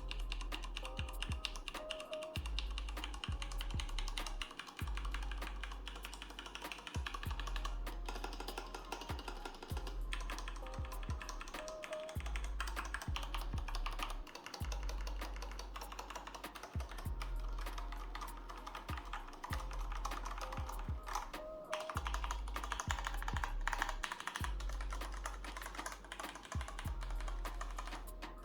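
Typing on an IQUNIX A80 mechanical keyboard with Cherry MX Brown switches: a fast, continuous run of keystroke clicks, over a beat with deep bass notes.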